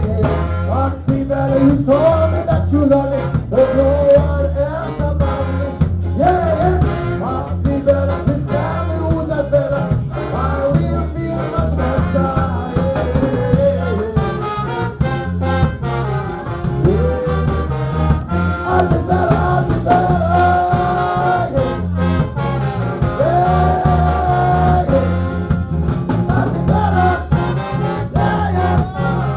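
Live ska band playing: a horn section of trombone, trumpet and saxophone over a steady bass and drum beat, with two long held notes about two-thirds of the way through.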